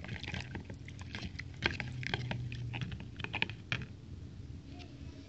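A metal spoon stirring thin cornflour-and-stock sauce in a bowl, giving irregular light clicks and taps against the bowl's side, over a faint steady low hum.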